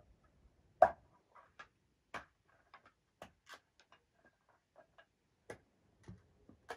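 A string of irregular sharp clicks and knocks, a dozen or so, the loudest about a second in.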